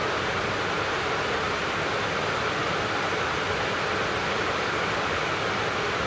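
Steady rain falling, an even continuous hiss without breaks.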